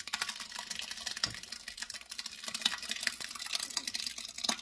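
Thick blended apple mash sliding out of a blender jar into a stainless steel pot, a dense run of small wet splats and clicks.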